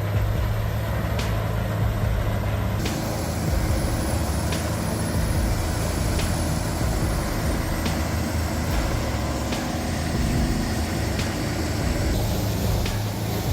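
Heavy machinery running steadily, a large engine with a low hum, the sound changing abruptly about three seconds in.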